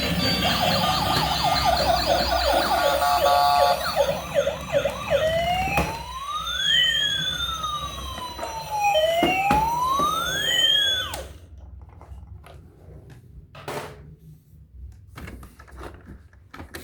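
Toy emergency vehicle's electronic siren: a fast warble for about four seconds, then two slow rising-and-falling wails, cutting off suddenly about eleven seconds in. A few faint clicks follow.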